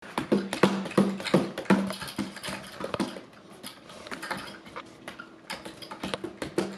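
Irregular sharp clicks and light knocks, several a second, over a steady low hum.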